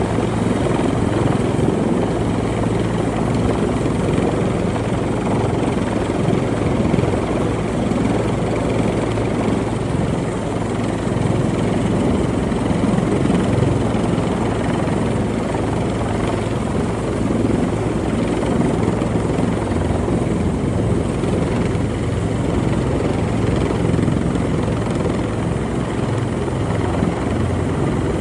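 Rescue helicopter hovering close by: steady rotor and engine noise with a constant low hum, unchanging throughout.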